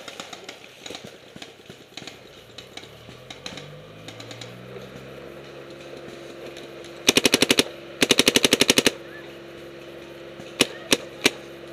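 Paintball marker firing close by: two rapid strings of shots about a second apart, then three single shots near the end.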